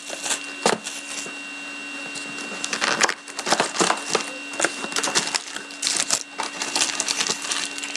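Plastic shrink-wrap crinkling and tearing as it is pulled off a sealed box of trading cards, followed by the cardboard box being opened and foil card packs taken out: a continuous run of crackles, rustles and small clicks.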